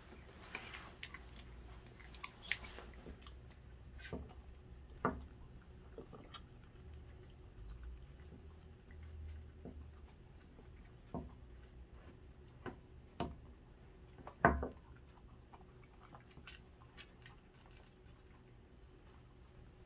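Dachshund chewing and biting raw chicken, with irregular crunches spread through, the loudest about three-quarters of the way through.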